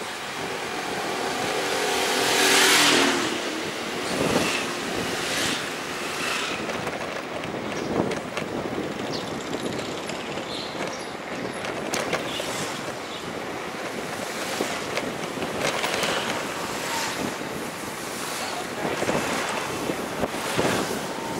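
Road traffic passing over a steady hiss. One engine passes close by, rising to its loudest about two and a half seconds in, and further vehicles swell and fade later on.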